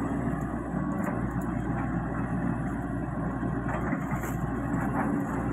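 XCMG XE75DA mini excavator's diesel engine running steadily as the machine digs in wet mud, a constant low drone.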